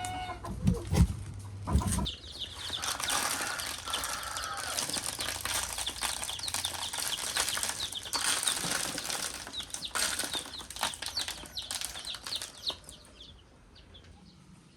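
Chickens flapping their wings, with clucking and many short high calls over the rustle. A few loud knocks come in the first two seconds, and the sound fades near the end.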